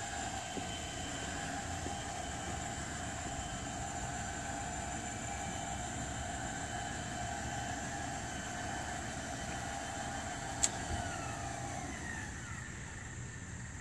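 Electric swing gate operators (Linear Pro Access PRO-SW3000XLS and PRO-SW3200XLS) whining steadily as they swing a double chain-link gate open. A single sharp click comes near the end, and then the motor whine falls in pitch and dies away as the leaves reach full open.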